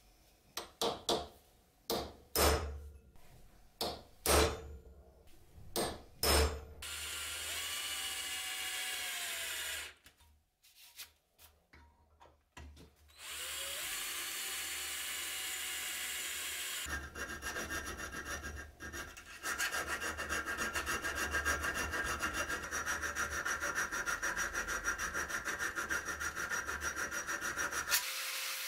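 Hammer tapping a centre punch into a steel plate, several sharp strikes. Then an electric drill boring into the steel, in two stretches with a short pause between; from about halfway through, the cutting turns into a dense, rapid chattering until it stops just before the end.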